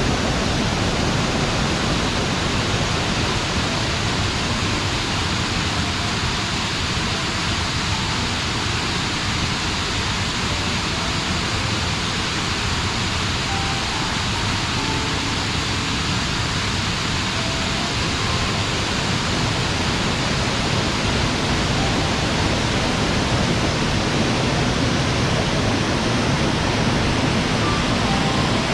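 Mountain waterfall pouring: a steady, loud rush of falling water with no breaks.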